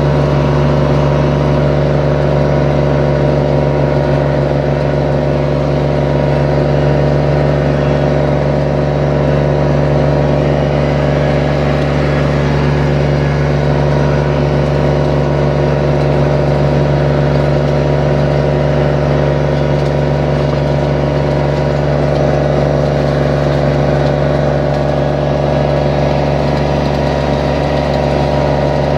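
Kubota BX24 tractor's three-cylinder diesel engine running steadily at working speed, driving a PTO flail mower through grass and weeds.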